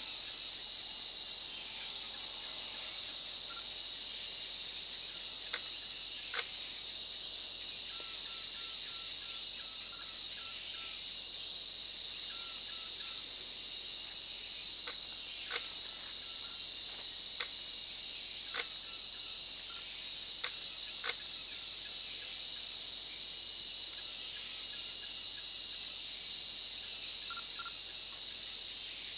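Steady high-pitched chorus of insects. A few short sharp clicks stand out through the middle, with faint runs of quick repeated notes underneath.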